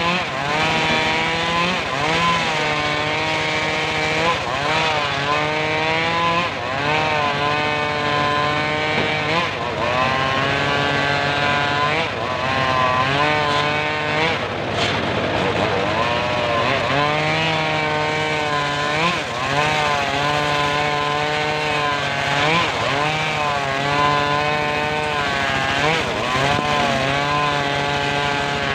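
Homemade circular saw bench cutting a hardwood log. Its steady running note sags in pitch and recovers every few seconds as the blade bites into the wood and eases off.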